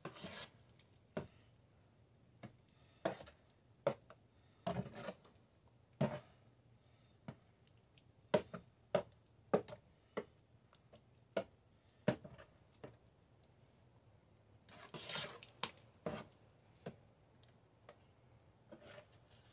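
Spoon stirring a thick, wet mash of sweet potatoes in a large metal roaster pan. Irregular soft knocks against the pan, about one a second, with a few longer scraping, squelching strokes.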